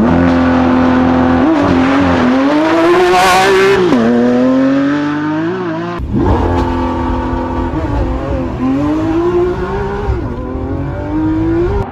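Lamborghini Aventador SVJ's naturally aspirated V12 under full-throttle acceleration from a standing start, its pitch climbing and dropping back at each gear change. It is heard from outside at first, then from inside the cabin about halfway through.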